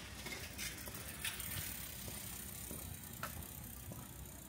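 Rainy street ambience: a steady low rumble with a high hiss, broken by a few scattered sharp clicks.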